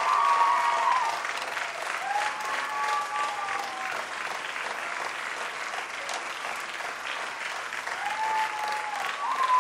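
Audience applauding steadily. A few long pitched calls from the crowd ring out over the clapping: at the start, around two seconds in, and again near the end.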